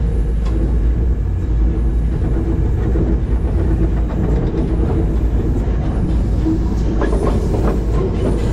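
A small open-car ride train rolling along its track: a steady rumble of the cars with wheel clatter, and a few sharper clicks near the end.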